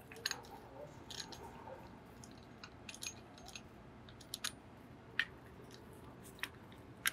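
Quiet, scattered light clicks and taps of metal parts being handled: a brake caliper, its old worn brake pad and a piston-compressing tool being fitted together.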